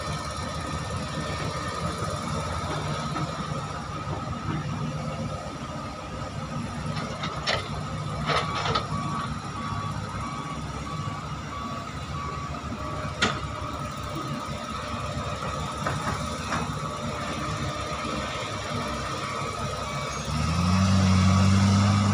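Diesel engines of hydraulic excavators and a dump truck running steadily, with a few sharp knocks as the buckets dig and dump ore. A faint repeated beep sounds for a few seconds near the middle. About 20 seconds in, an engine note rises and gets louder.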